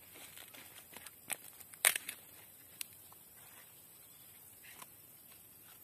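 Green leaves crackling and rustling as a leaf-wrapped packet is folded and tied by hand. There are a few sharp crackles, the loudest about two seconds in, with softer rustling between.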